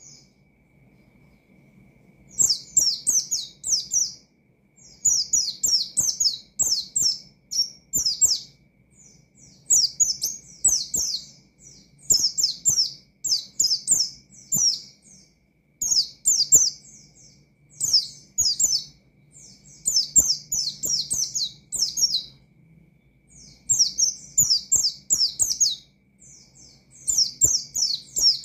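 White-eye (pleci) singing in fast, high, chattering phrases. The phrases come in bursts of about two seconds with short breaks between them, after a quieter start. This is the loud, rapid 'gacor' song meant to provoke rival white-eyes.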